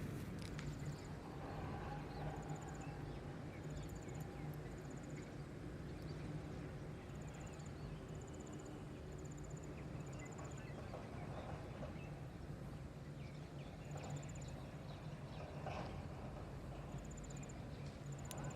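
An insect chirping in short, rapidly pulsed trills, each about half a second long and repeated every second or so, over a steady low hum and outdoor background noise.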